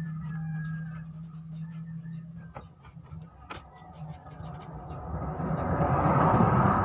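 A toothbrush scrubbing a small circuit board from a Brother DCP-T700W printer to clean it, giving a soft scratching with light clicks. A louder rushing noise swells up near the end.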